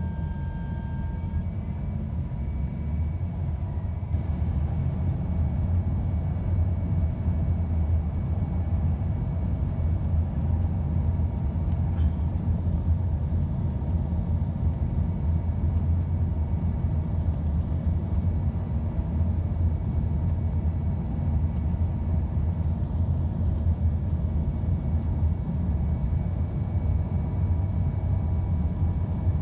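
Steady low rumble of cabin noise inside an Embraer ERJ-140 regional jet on approach, from the airflow and its two rear-mounted turbofans, with a faint steady whine over it. It grows slightly louder a few seconds in.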